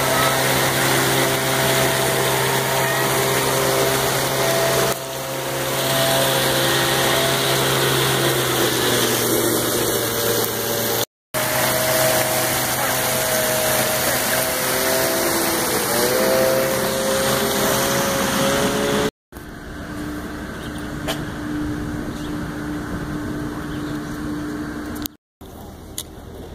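Fountain jets spraying and splashing into a pool, a steady rush of falling water, with a mechanical hum of several steady pitches under it. The sound breaks off briefly twice and is quieter from about two-thirds of the way in.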